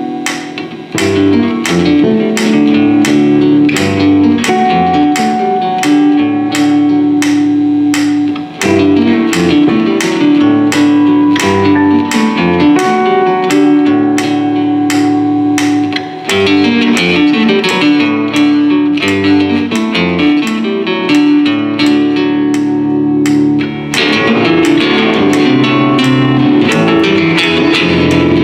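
Live instrumental music led by plucked, guitar-like strings over sustained low notes, with a steady pulse of sharp attacks about twice a second.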